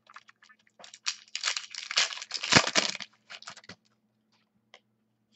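Plastic crinkling and rustling as trading cards are handled: a dense run from about a second in to about three seconds, loudest with a dull bump near its peak, then a few light clicks.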